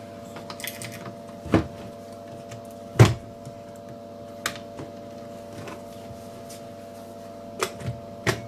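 Hard plastic parts of a cordless drill knocking and clicking together as the motor and switch are seated in the housing halves and the halves are pressed shut: about six sharp knocks spread through, the loudest about three seconds in and three close together near the end.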